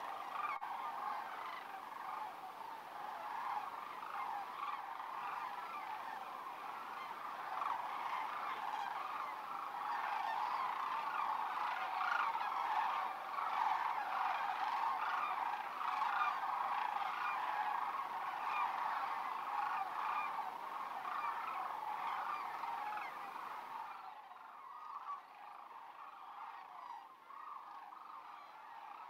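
A large flock of sandhill cranes calling all at once: a dense chorus of overlapping rattling bugles. It turns quieter for the last few seconds.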